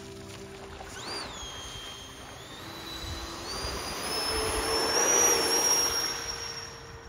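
Electric ducted fan of an RC hydroplane whining as it is throttled up, its pitch swooping up about a second in and then climbing steadily as the fan speeds up. The sound swells to its loudest about five seconds in and then fades.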